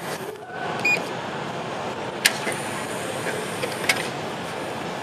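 Ema wish-tablet vending machine beeps once about a second in as its button is pressed. This is followed by a sharp click a little after two seconds and another near four seconds as its dispensing compartment is opened, over a steady background hum.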